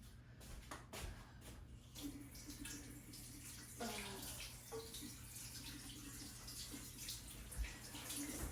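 Liquid running and splashing faintly and steadily, starting about two seconds in, after a few light knocks.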